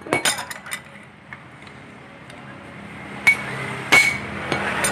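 Steel hand tools clinking and knocking against a motor scooter's CVT pulley assembly as an adjustable wrench and a pipe extension are set on its nut: a quick run of sharp clinks in the first second, then two ringing metal knocks near the end.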